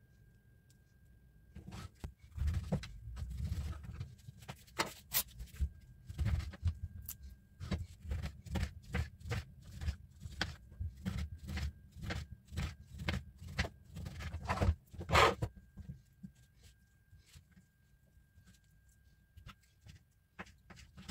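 Kitchen knife slicing an orange on a plastic cutting board: a long run of short knife taps and cuts against the board, which stop about three-quarters of the way through.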